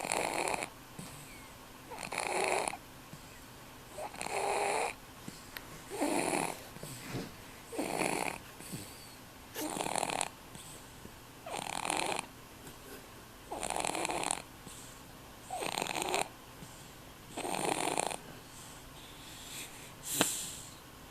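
A three-month-old baby snoring in sleep, with a snore about every two seconds.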